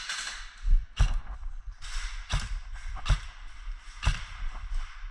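Footsteps of a player moving through a building, short knocks about every 0.7 s, with gear rustling between them.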